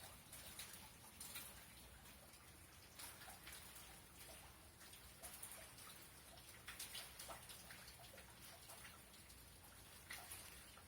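Faint rain during a thunderstorm: scattered, irregular drops ticking and dripping over a low hiss.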